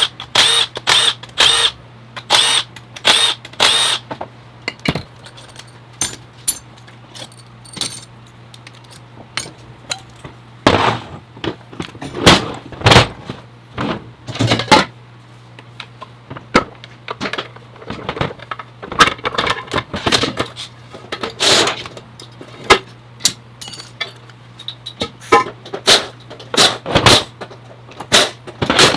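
Metal transmission parts and hand tools clanking and clinking in irregular knocks during teardown of an automatic transmission, a few ringing briefly in the first seconds, over a steady low hum.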